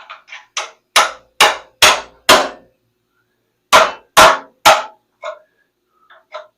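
Hammer blows on a steel car frame: four hard strikes about half a second apart, then after a pause three more, with lighter taps before and after.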